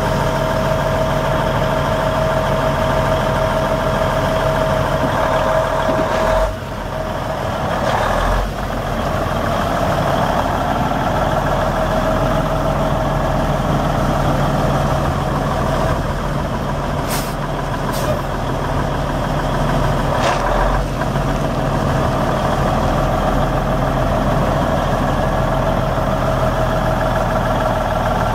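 The 1998 Kenworth T800's Cummins N14 inline-six diesel runs steadily as the semi tractor drives slowly, with a held mid-pitched whine over the engine note. The sound dips briefly twice in the first third, and a few brief sharp clicks come past the middle.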